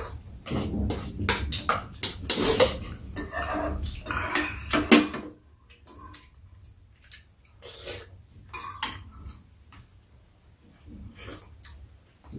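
Metal spoons and chopsticks clinking and scraping against bowls during a meal, busy in the first five seconds, then a few scattered clinks.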